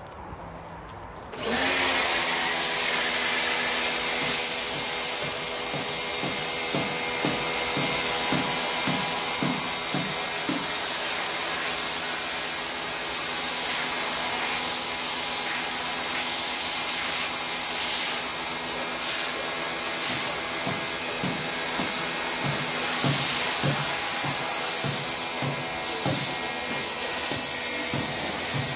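Pressure washer starting up about a second and a half in, then running steadily with its motor-pump hum and the hiss of a snow foam lance spraying thick foam onto a car.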